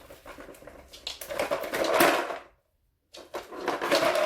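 Dry food rattling and knocking inside a homemade plastic treat-dispensing toy as a dog noses and paws it around to shake the kibble out, a busy clatter of small knocks and scrapes. It cuts out completely for about half a second midway, then resumes.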